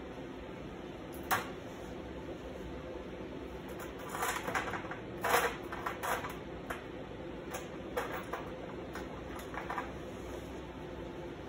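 Scattered clicks and light metallic clinks of gloved hands handling welding gear and steel chain on a steel sheet, bunched about four to six seconds in, over a steady low hum.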